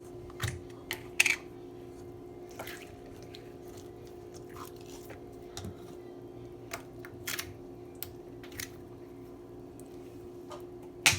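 Glitter slime being squeezed and pulled apart by hand, giving scattered small clicks and squishy crackles over a steady low hum; the sharpest click comes near the end.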